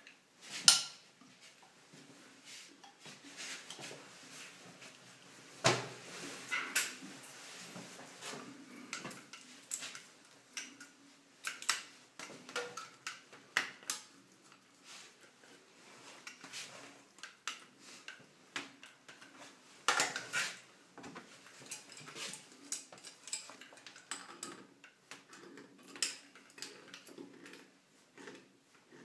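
Chrome shower fittings clicking and clinking as they are handled and fitted by hand: a cover snapped onto a hand-shower holder bracket, then a shower hose fitted to the wall outlet elbow, with pliers gripping the metal nut near the end. The sound comes as scattered sharp clicks with a few louder knocks.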